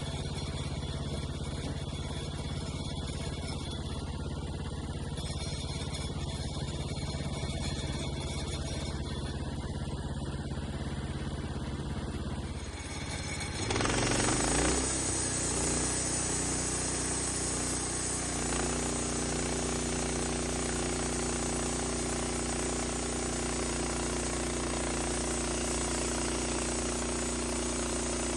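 Gas engine of a log-milling saw running steadily, then throttling up about halfway through, with a steady high hiss of the blade cutting through white oak for the rest of the stretch.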